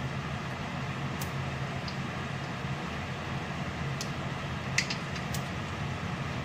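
Mustard seeds spluttering in hot oil in a steel kadai for tempering: a few sharp, scattered pops over a steady low hum.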